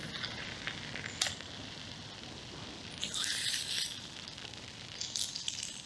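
Burger patties sizzling in a Ridgemonkey pan over a wood fire, with scattered crackles and pops from the burning logs. The hiss of the frying swells about three seconds in and again near the end.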